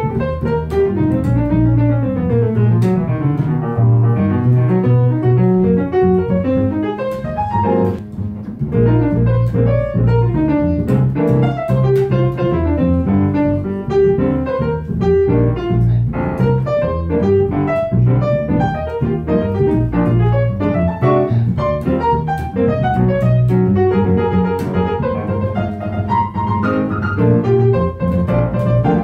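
A piano played live, with quick runs sweeping down and up the keyboard over low bass notes, and a short dip in loudness about eight seconds in.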